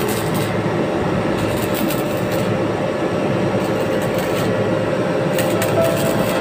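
Electric arc welding or cutting on rusted steel pipe: a steady, dense crackle over a steady low machine hum.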